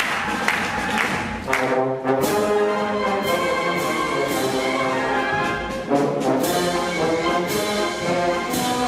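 Orchestral music with brass: held brass chords come in about a second and a half in over a steady percussive beat.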